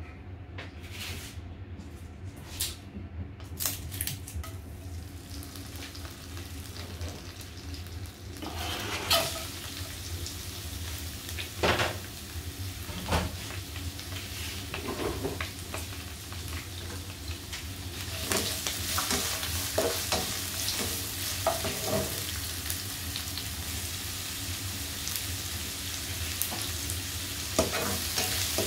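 Oil in a granite-coated nonstick wok crackles a few times, then sliced red onion, garlic and bay leaves go into it a little before nine seconds in and start sizzling, the frying growing louder later on. Near the end a spatula stirs and scrapes them around the pan.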